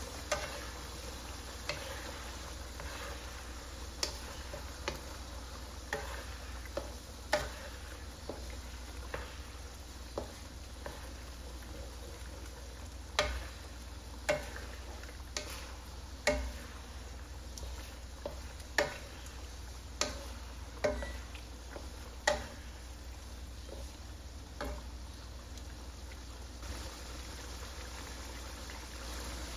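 Curry simmering in a nonstick wok, a steady sizzling hiss, with a wooden spatula stirring and knocking against the pan in irregular sharp clicks, most often about halfway through.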